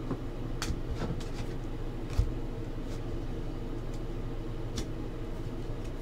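Steady low room hum with a few light clicks and taps of trading cards and boxes being handled on a table; the sharpest knock comes about two seconds in.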